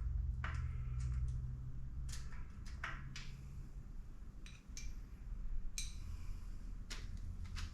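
Metal hand tools and SR20DET engine parts clinking during teardown: a dozen or so scattered light clicks and knocks over a low steady hum.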